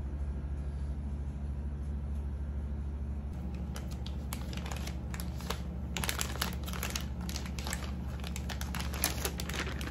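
A clear plastic vacuum-sealer bag crinkling and rustling as boudin sausage links are pushed into it by hand, in irregular crackles that start about a third of the way in and grow busier in the second half. A steady low hum runs underneath.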